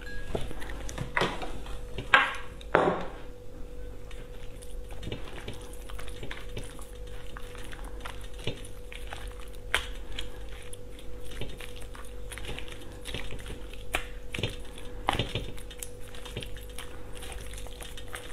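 Chopsticks stirring raw minced beef tartare and a raw egg yolk in sauce on a ceramic plate: wet squishing with many small clicks and scrapes of the chopsticks against the plate. There are a few louder knocks in the first three seconds, and a faint steady hum underneath.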